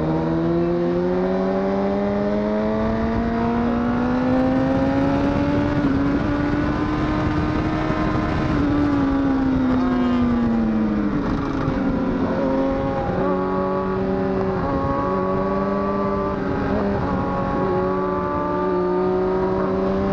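Honda CBR1000RR SC57 inline-four engine pulling in gear, its pitch climbing slowly for several seconds. Past the middle it rolls off and falls, then cruises at steady revs with small throttle changes. Wind rushes steadily underneath.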